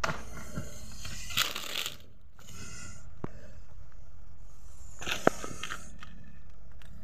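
Plastic bottle crinkling and dry fallen leaves crunching as the bottle is shaken and pressed on the leaf litter, in several short bursts, with a sharp click about five seconds in.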